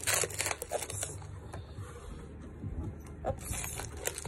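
Cardboard box and plastic wrapping being handled and pulled open: irregular rustles, crinkles and small clicks, thickest in the first second and sparser after.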